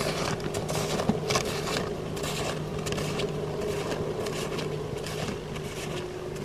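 Footsteps crunching and scraping through frozen snow, an uneven run of short crackly steps over a steady low hum.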